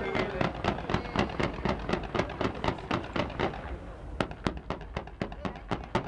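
Festival fireworks going off in a rapid, even string of bangs, about four to five a second. A little past the middle the din behind them thins and the bangs come through sharper.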